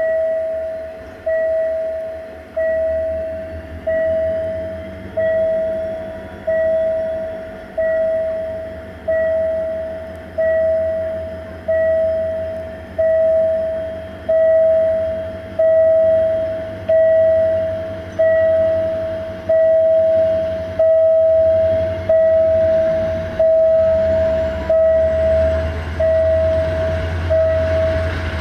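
A level-crossing warning bell rings steadily, about one ding every 1.3 seconds. Each ding starts sharply and fades, and the dings grow louder as the train nears the crossing. Beneath them runs the low rumble of the diesel train.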